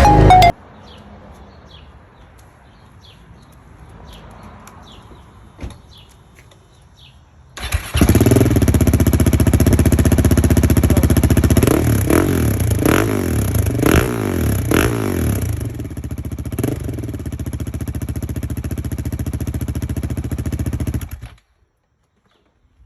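KTM 690 SMC R's single-cylinder engine breathing through an Arrow full exhaust system starts abruptly after several quiet seconds and runs at idle, with a few quick throttle blips in the middle. It is switched off suddenly near the end.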